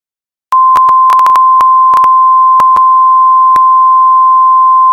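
Loud, steady single-pitch electronic alert tone of a mock Emergency Alert System broadcast, starting about half a second in and holding without change, with a dozen or so irregular clicks crackling through it.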